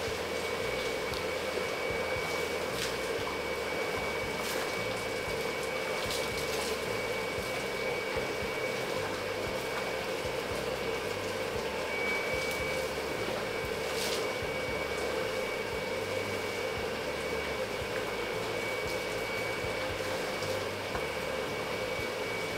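Steady mechanical hum and hiss of hatchery machinery, with a thin high whine held throughout. A few faint splashes come through as trout break the surface of the tank for hand-thrown feed.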